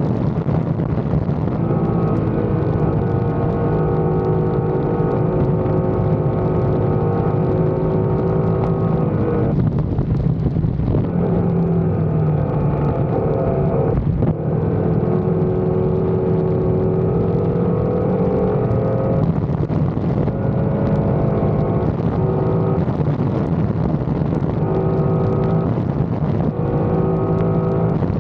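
Motorcycle riding at speed: a steady engine note under loud wind rush, the engine note dropping out briefly several times.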